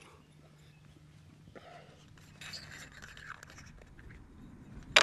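Faint rustling and small handling clicks, then near the end a single short, sharp crack: a shot from a Kral Puncher Breaker .22 pre-charged pneumatic bullpup air rifle.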